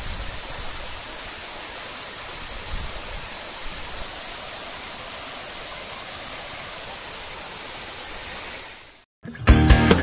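Waterfall pouring into a pool, a steady rushing of water that fades out about nine seconds in. Music with guitar starts just after.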